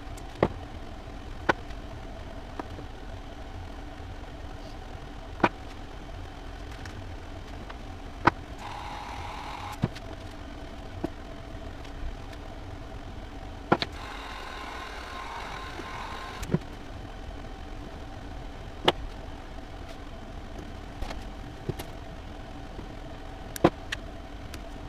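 Scattered sharp clicks and taps of tools and small parts being handled while wiring a battery box, over a steady low hum. Twice, a few seconds of scraping or rustling.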